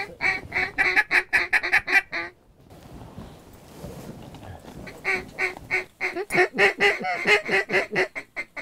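Mallard duck call blown in rapid runs of short quacks, about six a second. There are two runs, with a pause of a few seconds between them.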